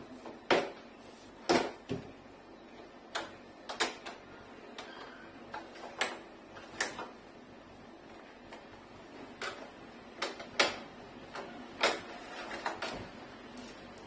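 Irregular sharp clicks and knocks of plastic as the front panel and casing of a Sharp split air conditioner's indoor unit are handled and unclipped during disassembly.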